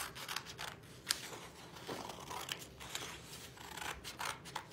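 Scissors cutting slowly through green construction paper along a drawn line: a series of irregular sharp snips mixed with crisp paper rustling as the sheet is moved.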